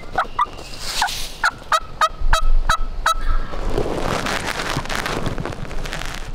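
Turkey yelping: a run of about eight quick, pitched notes, the later ones about three a second and steady in pitch, ending about three seconds in. A couple of seconds of noisy rustle follow.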